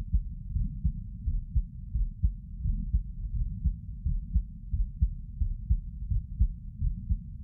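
A person's heartbeat recorded close up while sitting at rest: steady, regular lub-dub beats heard as dull, low thumps.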